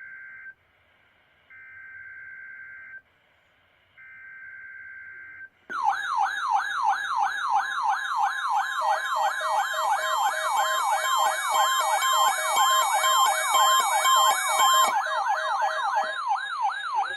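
Three short bursts of buzzy digital data tones, the Emergency Alert System's SAME header that precedes an alert. Then, about six seconds in, a loud electronic siren alarm starts, warbling rapidly up and down several times a second, as a weather radio receiver's warning alarm sets off on the test.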